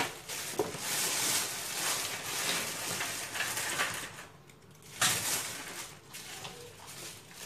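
Off-camera rustling and handling noise: one long stretch of hissy rustling, a short lull, then a second burst about five seconds in that dies away.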